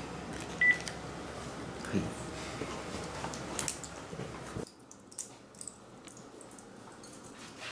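A single short beep from a cordless phone handset as its button is pressed to end the call, over low room tone with a few light knocks of handling.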